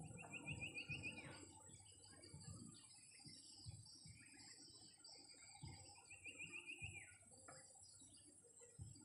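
A bird twice gives a quick run of about five repeated notes, once near the start and again about six seconds later. Other birds chirp faintly, over a steady high-pitched insect drone and some low rumbling.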